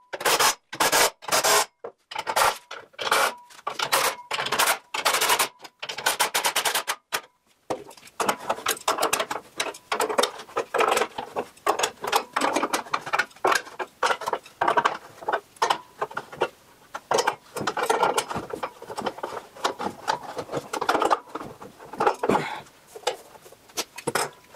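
Cordless DeWalt impact driver run in a series of short bursts, tightening the bolts of unistrut panel clamps over a glued-up board. After about seven seconds it stops, giving way to hands working the metal strut clamps, with rubbing and small clicks.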